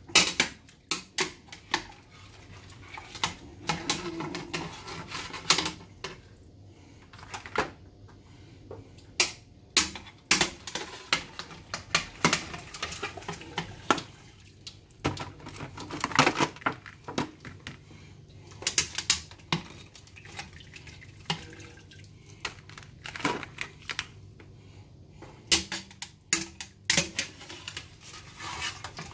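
Irregular metallic clinks and clatter of tongs and a wire strainer knocking against an aluminum stockpot and a foil pan as boiled seafood is lifted out and dropped in.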